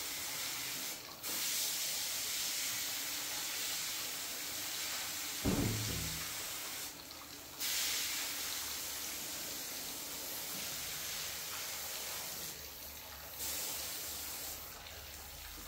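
Paint spraying onto a wall: a steady hiss in long bursts, broken by short pauses about a second in, around seven seconds, around thirteen seconds and near the end. A single dull knock about five and a half seconds in.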